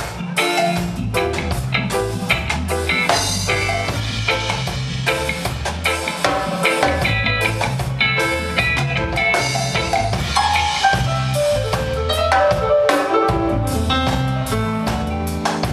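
Live band playing: a steady drum-kit beat and an electric bass line under electric guitar and melodic lines.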